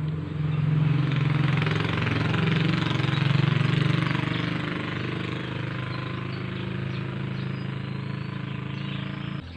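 An engine running, loudest in the first four seconds and then easing off a little, cutting off abruptly near the end.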